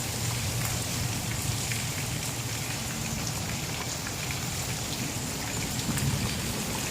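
Steady thunderstorm rain falling and pattering, an even hiss dotted with the ticks of single drops, over a steady low hum.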